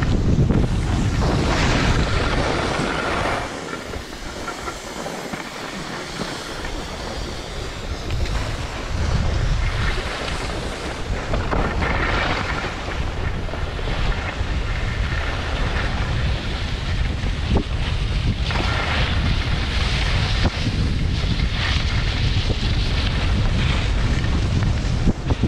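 Wind buffeting an action camera's microphone while skiing downhill, with the hiss and scrape of skis on packed snow surging with each turn. It eases off for a few seconds about four seconds in.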